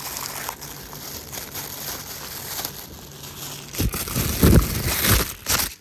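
Packaging crinkling and rustling as a part is taken out of its wrapping, getting louder with a run of sharp crackles about two-thirds of the way in.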